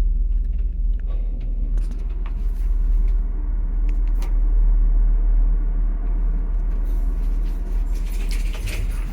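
A steady low rumble with a deep hum, with a few faint clicks about two and four seconds in.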